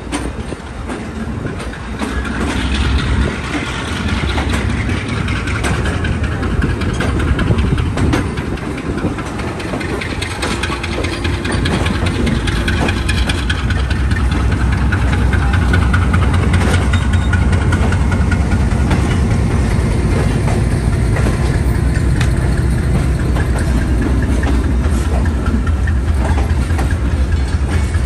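Diesel locomotive engine running with a heavy low rumble as a train pulls out, growing louder over roughly the first half and then holding steady.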